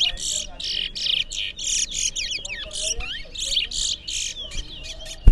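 Two towa-towa (large-billed seed finches) singing against each other: rapid, repeated bursts of high chirping and whistled notes, one phrase after another with barely a pause. Each burst is a song that the competition counts.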